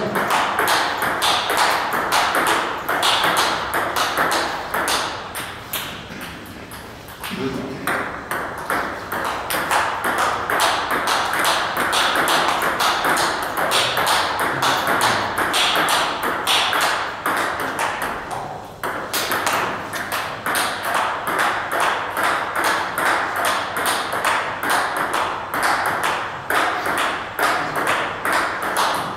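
Table tennis balls clicking off tables and bats in a dense, continuous run of sharp clicks, with indistinct voices behind them and a short lull about six seconds in.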